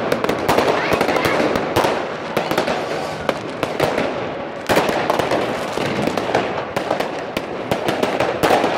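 Fireworks going off, many sharp bangs and crackles in quick, irregular succession, with a louder cluster of bangs about five seconds in and again near the end.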